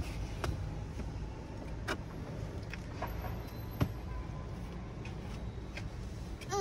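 Steady low rumble with a few light clicks and knocks, the sharpest about four seconds in, as a small child handles a car seat belt, pulling the strap across herself.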